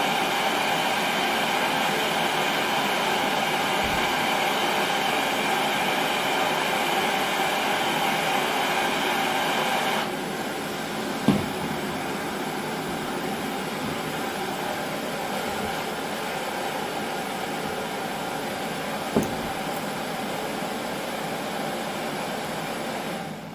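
Gas torch flames hissing steadily while heating an O1 tool-steel plane blade for hardening. About ten seconds in the hiss drops to a quieter level, with a short knock soon after and another one later, and it falls away near the end.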